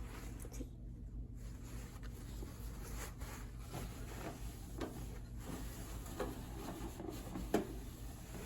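Light rubbing and scattered small knocks of things being handled at a microwave, with one sharper knock near the end.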